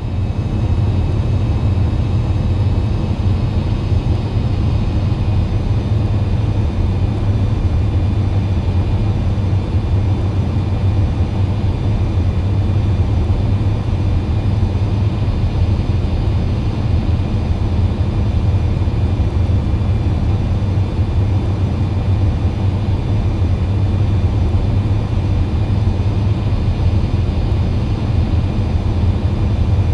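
Jet airliner engines in flight: a steady, unchanging drone with a strong low rumble and a faint high whine over it.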